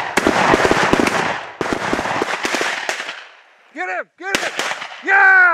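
A rapid volley of many overlapping shotgun blasts from several hunters firing at a flock of mallards. The firing stops about three seconds in and is followed by a few short shouts.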